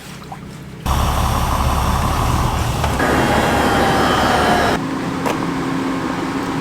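Loud running vehicle or machinery engine noise with a heavy low rumble. It cuts in suddenly about a second in and changes abruptly twice, at about three seconds and near five seconds.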